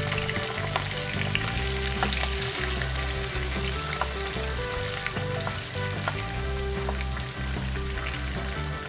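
Cubed canned beefloaf and tofu frying in hot oil in a pan: a steady, dense crackling sizzle, with the pieces being stirred by a spatula and a few light clicks from it.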